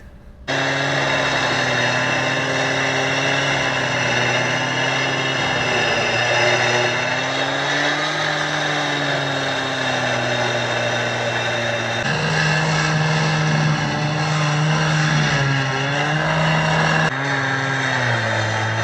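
Gas-powered cut-off saw (hot saw) running at high revs and cutting a concrete curb: a steady high engine note that sags and recovers as the blade loads up in the cut, over the gritty hiss of the blade grinding through concrete. The pitch jumps abruptly twice.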